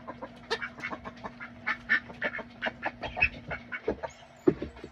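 Backyard chickens clucking, many short calls in quick succession, as the flock crowds in to be hand-fed bread, over a faint steady hum.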